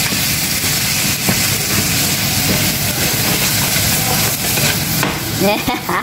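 Sliced meat and onions sizzling in hot oil in a frying pan, a steady loud hiss, as a wooden spatula stirs them.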